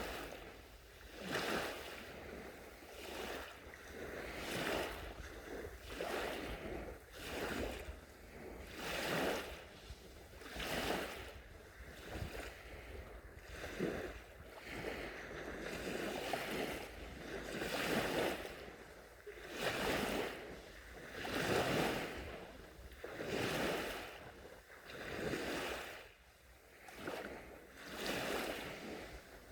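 Small sea waves lapping onto a beach, one soft wash swelling and fading about every one and a half to two seconds.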